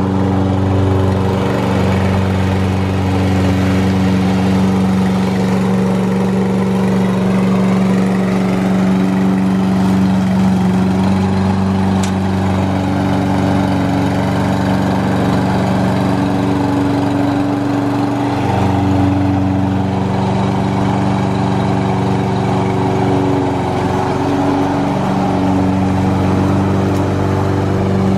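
A Toro Recycler 22-inch lawn mower's single-cylinder four-stroke engine running at a steady speed with its blade spinning, having started on the first pull. Near the end it is pushed through grass while mowing.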